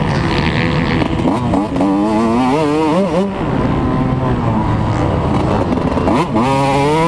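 Motocross dirt bike engine, ridden hard and heard close up. The engine climbs in pitch from about a second in, drops sharply about three seconds in, runs steadily, then climbs again near the end, with wind rushing over the microphone.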